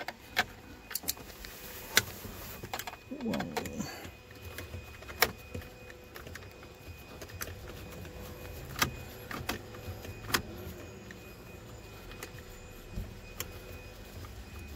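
Screwdriver work on the centre-console trim and the MMI unit's mounting screw: a string of sharp, irregular clicks and taps of metal on plastic, over a steady low hum.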